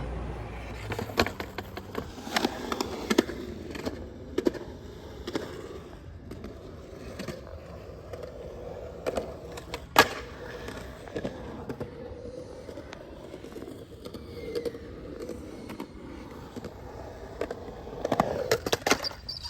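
Skateboard wheels rolling on concrete, with scattered clacks and knocks of the board hitting the ground. The loudest clack comes about halfway through, and a quick run of them comes near the end.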